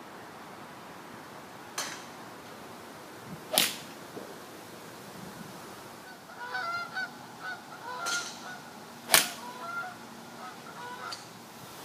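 Golf club striking balls off a driving-range mat: five sharp clicks, the loudest about three and a half and nine seconds in, fainter ones around two, eight and eleven seconds. From about six seconds in, birds call repeatedly in the background.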